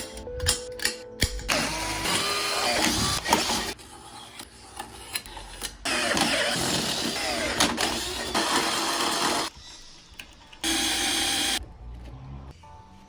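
Bursts of workshop tool noise over background music: three loud stretches, the longest about four seconds, with quieter pauses between.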